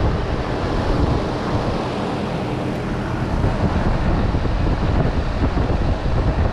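Heat pump outdoor unit running normally: the condenser fan's air rushes steadily over a low hum from the unit.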